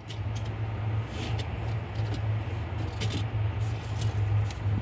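Faint clicks and scrapes of a plastic fuel pump module being worked by hand down into a car's fuel tank opening, over a steady low hum.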